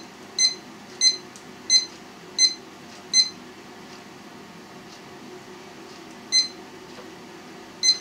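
Digital probe thermometer beeping at each button press as its alarm temperature is set: about six short, same-pitched beeps in quick succession, a pause, then two more single beeps.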